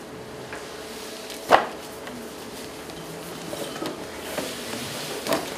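A single sharp knock about a second and a half in, then faint rustling of paper sheets being handled, over a steady hum.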